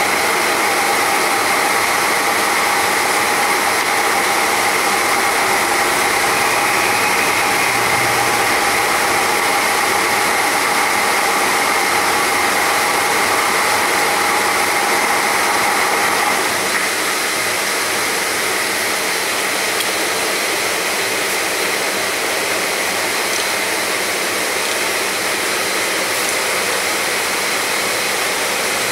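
80 mm radial drill machine running: a steady mechanical whir of its motor and spindle gearing, with a whine that drops out about halfway through, leaving a slightly quieter, even hum.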